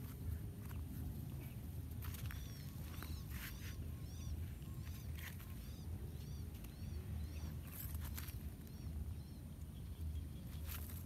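A run of short, high chirps, about two a second, starting about two seconds in and stopping a little before the end, over a steady low rumble and light rustling.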